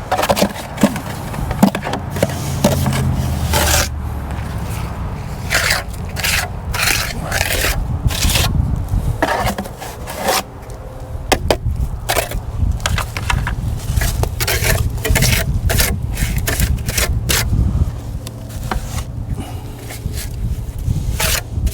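Repeated irregular scraping strokes of a hand tool working over concrete, over a steady low rumble.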